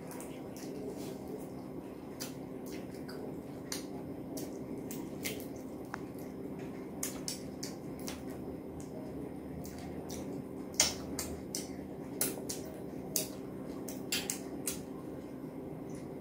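Close-miked eating: wet chewing, lip-smacking and mouth clicks as a person eats curry and rice by hand, the sharpest clicks coming in the second half.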